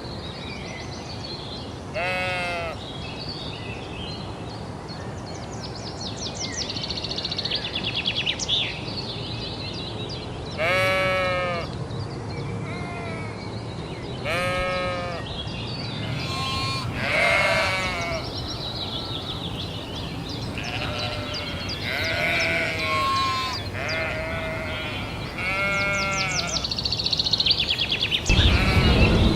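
Sheep bleating repeatedly: about a dozen short calls of varying pitch over steady background noise, with stretches of rapid high chirping in between.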